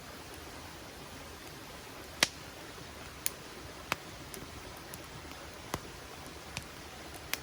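Campfire wood crackling, with about six sharp pops at irregular moments, the loudest about two seconds in, over the steady rush of a river.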